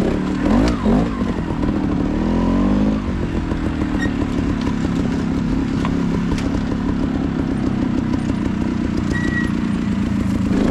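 Dirt bike engine revving up and down for the first three seconds or so, then running at a steady, lower pitch, with a few short knocks over it.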